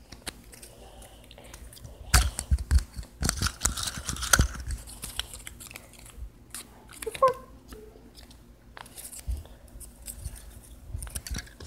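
Irregular knocks, clicks and rustles of paper and hands moving right at the microphone, busiest from about two to five seconds in, with a brief vocal sound about seven seconds in.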